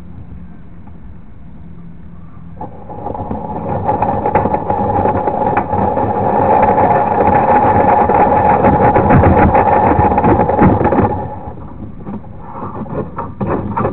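Sewer inspection camera's push cable being fed off its reel down a roof vent stack: a steady rattling and scraping with many small clicks and a steady hum, starting about two and a half seconds in and dropping away about eleven seconds in, with scattered clicks again near the end.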